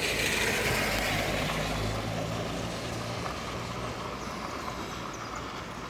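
A road vehicle passes on a wet street. Its tyre noise is loudest at the start and sinks and fades, and a low engine hum comes in the middle. Under it runs a steady hiss from the hailstorm.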